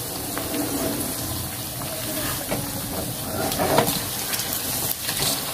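Fatty pork shoulder pieces sizzling steadily as they fry in hot oil in a nonstick pan, with a spatula scraping the pan a few times as the pieces are turned over.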